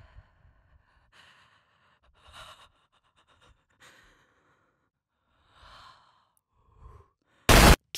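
A person's soft breathy exhales, about six faint puffs spaced a second or so apart, then a short, very loud burst of noise near the end.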